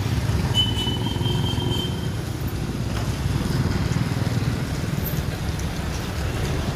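Street traffic noise: a steady low rumble of road vehicles, motorcycles among them. A thin high tone sounds for about a second and a half near the start.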